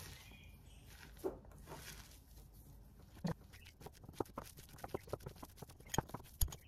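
Fingers mashing and squeezing boiled potato with chopped onion in a bowl: soft, irregular squishing and small clicks, sparse at first and busier from about halfway through.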